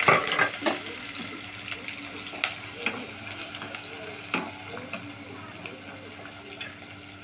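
Sliced onions sizzling in hot oil in a non-stick pot, loudest right at the start as they hit the oil. A slotted spoon stirring them clicks against the pot several times.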